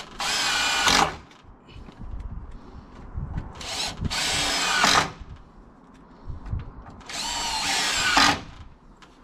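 Power drill run in three short bursts of about a second each, its motor whine rising in pitch as it spins up each time, with light knocks and handling between the bursts.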